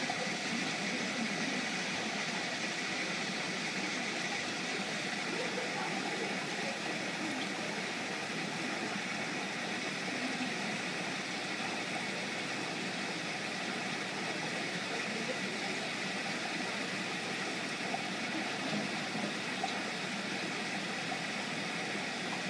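Steady background hiss and hum with a faint high tone, unchanging throughout, with no distinct events.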